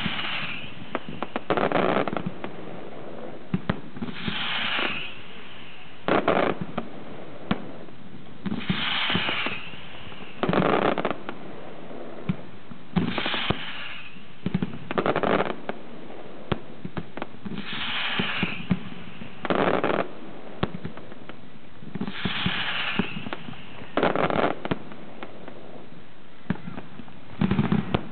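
Aerial firework shells launching and bursting in a steady sequence. About every four and a half seconds a hiss is followed a second or two later by a loud bang, with scattered crackles in between.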